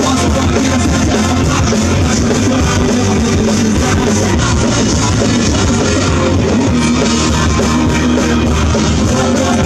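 Live rock band playing through a PA: electric guitar and drum kit.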